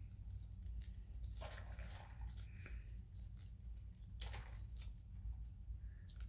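Paper straw wrapper being picked at and torn open by hand: soft paper rustling and tearing, with a sharper crackle about four seconds in.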